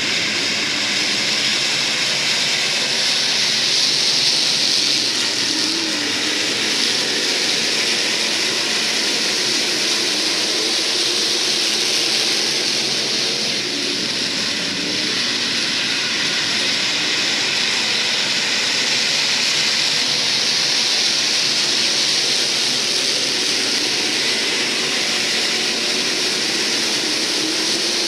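A pack of IMCA SportMod dirt-track race cars running laps, their V8 engines a steady, loud blended din whose pitch wavers as cars go by.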